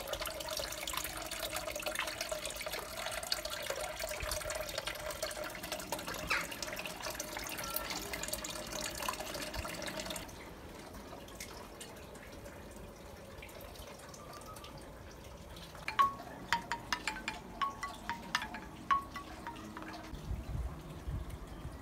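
Tiered metal garden water fountain trickling steadily. After a cut about ten seconds in, a bamboo wind chime's tubes knock together in a quick run of short, pitched clacks, the first one the loudest.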